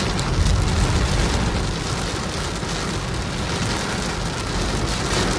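Torrential rain pelting a car's windshield and roof, heard from inside the car: a dense, steady hiss over a low rumble.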